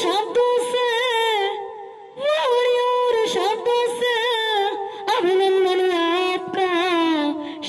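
A woman singing long held notes into a microphone, the voice wavering in vibrato, with short breaths between phrases about two seconds in and again about five seconds in.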